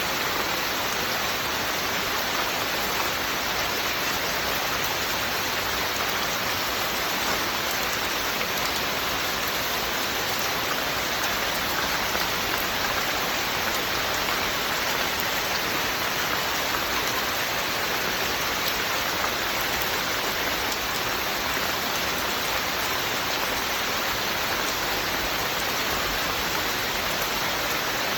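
Steady rain falling on a surface, an even hiss without a break.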